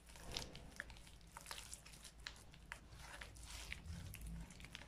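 Hands mixing soft butter, cheese and powdered sugar in a glazed clay bowl: quiet squishing with scattered light clicks of fingers against the glaze.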